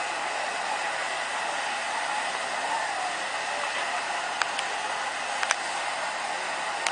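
Steady hiss of steam from standing steam locomotive No. 461, a 2-6-0, with a few short sharp clicks a little past halfway.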